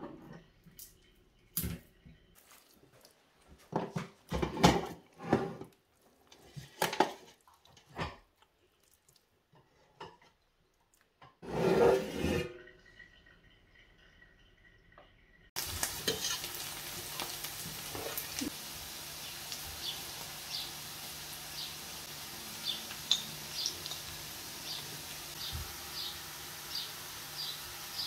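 Scattered knocks and handling sounds, with a louder rush of about a second near the middle. Then, from about two-thirds of the way in, onions sizzle steadily in oil in a stainless steel frying pan, with a regular patter of small crackles and a spoon stirring.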